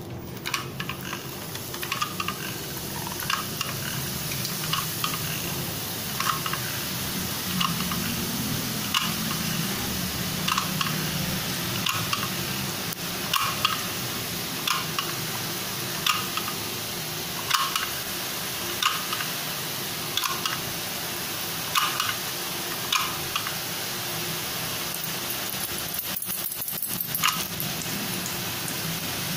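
Gathiya sev batter pressed from a sev maker into hot oil in a frying pan, the oil sizzling steadily as the strands fry. A short click repeats about every second and a half.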